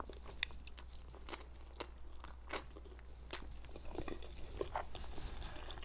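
A person chewing a mouthful of Korean instant noodles close to the microphone: soft, irregular mouth clicks and smacks.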